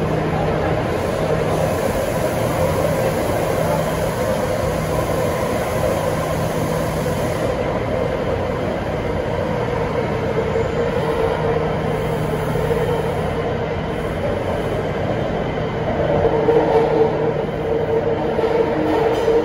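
Taipei Metro C301 train running between stations: steady rumble of wheels on rail with a low hum. It grows louder for a few seconds near the end.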